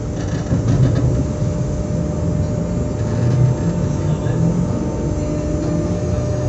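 SNCF Z 20500-series (Z2N) double-deck electric multiple unit standing at the platform, its onboard equipment humming steadily with a constant mid-pitched tone over a low rumble, slowly growing louder.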